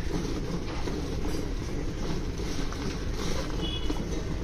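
A cow being milked by hand into a metal bucket of frothy milk: the milk streams splash into the foam as a continuous rushing noise.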